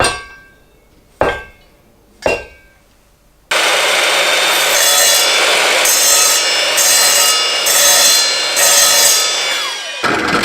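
Three sharp hatchet blows on a steel-toed safety shoe, each with a short metallic ring. Then, a few seconds in, a power grinder starts cutting into the shoe with a loud, continuous rasping noise that wavers in strength, throwing sparks off the steel toe.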